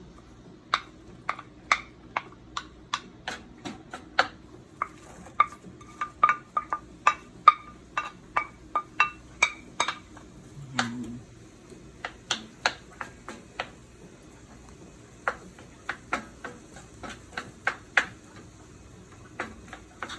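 A cooking utensil stirring vegetables in a pan, knocking against the pan about twice a second, with some strikes ringing briefly.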